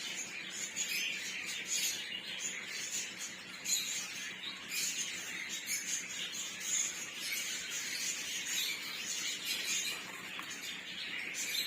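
Many small birds chirping and chattering together, a continuous busy twitter of short high chirps.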